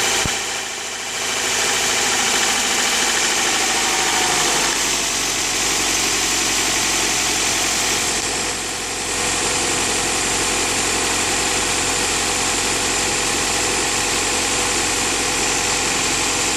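Honda H22A8 2.2-litre DOHC VTEC four-cylinder idling just after start-up, with a tapping from the engine that stops about four seconds in; after that it idles steadily.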